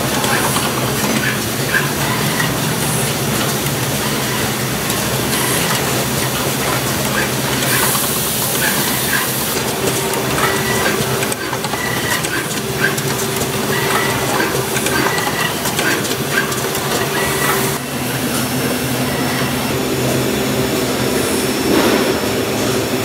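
Automatic socket assembly machine running: a steady hum from its vibratory bowl feeders and drives, with short clicks and snaps from its air-driven actuators and tones that switch on and off. A burst of compressed-air hiss comes about eight seconds in.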